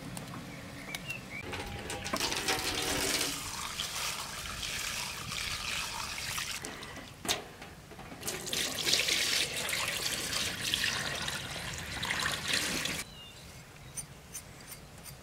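Water running and sloshing as rice is rinsed in a plastic basin at a stainless steel sink, with a single knock about seven seconds in. The water stops suddenly about thirteen seconds in, leaving a few light clicks near the end.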